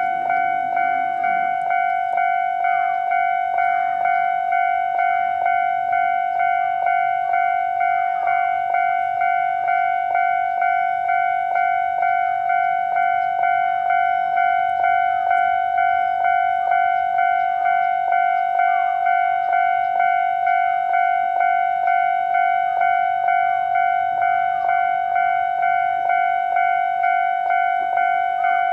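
Japanese railway level-crossing alarm ringing in its standard tone: a high, bell-like ding repeating steadily about one and a half times a second, the warning that a train is approaching.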